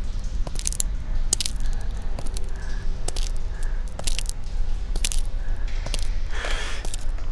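Dark thriller soundtrack sound design: a steady low rumbling drone with scattered sharp clicks. A brief noisy swell comes about six and a half seconds in.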